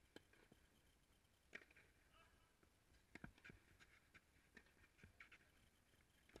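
Faint tennis rally on a clay court: a string of sharp knocks from racket strikes and ball bounces, the strongest about a second and a half in and another about three seconds in.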